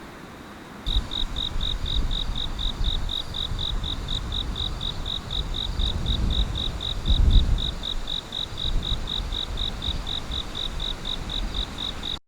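An insect chirping steadily, a high pulsed note repeating about four times a second, starting about a second in. Under it runs a low rumble that swells about seven seconds in.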